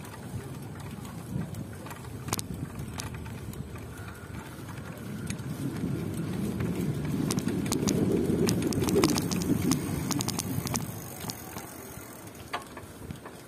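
Bicycle ride noise: a low rumble of wind and rolling tyres with scattered small clicks and rattles. A louder rumble swells from about five seconds in, peaks around eight to nine seconds, then fades away.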